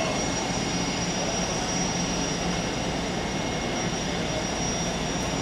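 Aircraft turbine engine running steadily: a constant rumble with a high, unchanging whine on top.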